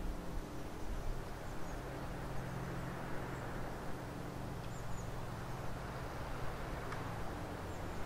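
Forest ambience: a steady rushing background with a low hum under it, and small birds giving faint high chirps several times.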